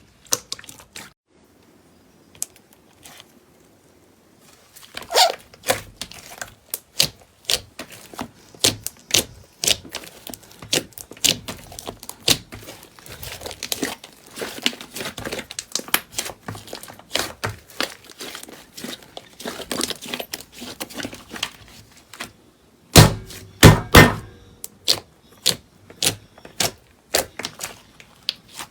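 Slime being squeezed, pressed and poked by hands, making dense, irregular clicking and popping. About 23 and 24 seconds in there are two louder thuds.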